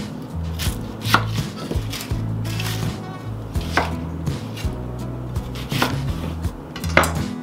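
Chef's knife cutting onions on a wooden cutting board: a handful of sharp knocks of the blade striking the board, irregularly spaced a second or two apart.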